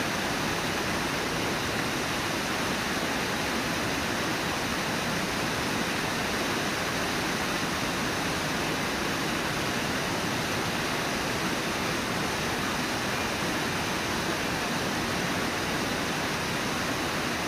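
Steady rush of whitewater at Brooks Falls, an even roar of falling and churning river water.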